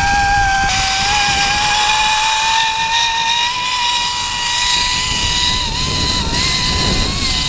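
Zipline trolley pulleys running along the steel cable: a steady, high whine that rises slightly in pitch over the first couple of seconds and then holds, over wind rushing on the microphone.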